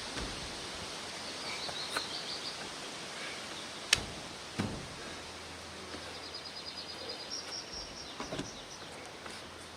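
Outdoor background hiss with a small bird's rapid high chirping in two short runs, one about a second and a half in and another near the middle-to-end. A single sharp click about four seconds in is the loudest sound, with a few lighter knocks after it.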